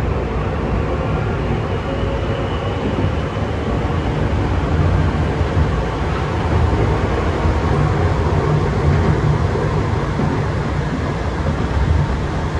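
Tokyu 8500 series electric train running, heard from inside the front car: a steady low rumble of wheels on rail and traction motors, with a faint steady whine above it.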